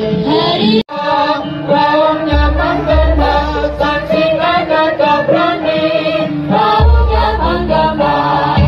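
Dance music with chant-like singing over it, cutting out for an instant about a second in, with deep low notes swelling in twice.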